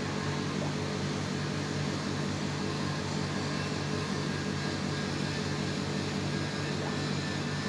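Steady low mechanical hum over a faint even hiss, with no change throughout: room background noise from a running machine.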